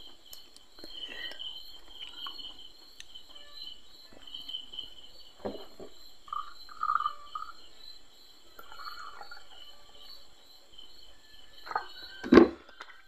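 Crickets chirping steadily. Whisky is poured from a small bottle into a glass partway through, and there is a sharp knock near the end.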